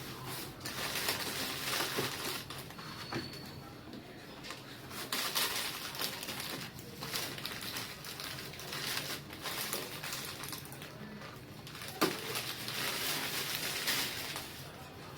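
Packaging being handled and unwrapped, with repeated rustling and crinkling and a few sharp knocks, one a little before the end.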